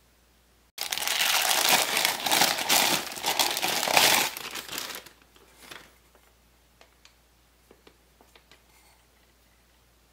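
Packaging wrap crinkling loudly as it is handled and pulled off the fan parts, starting suddenly about a second in and dying away a few seconds later, followed by a few faint clicks.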